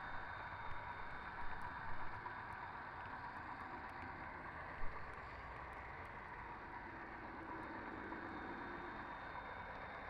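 Garden-railway model train running on outdoor track, heard from a camera riding on it: a steady rumble of wheels on the rails with scattered light clicks, and one sharper knock a little under five seconds in.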